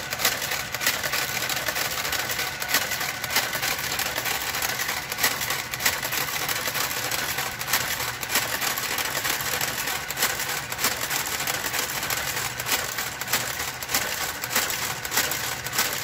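Brother KG-93E garter carriage running slowly along the needle bed of a Brother knitting machine: a steady motor whir with frequent clicks as it works the stitches.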